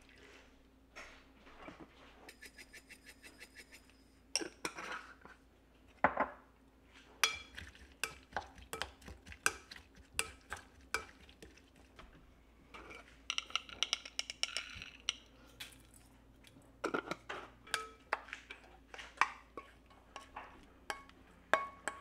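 Wooden spoon stirring a chili, scallion and garlic dressing in a bowl, with many quick knocks and clinks against the bowl's side. There is a short ringing clatter in the middle, then more taps as the dressing is spooned out.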